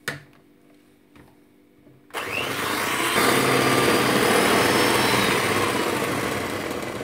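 Electric hand mixer switched on about two seconds in, its motor running with a whine as the beaters whisk a thin cream mixture in a plastic bowl, then winding down near the end. A short knock comes right at the start.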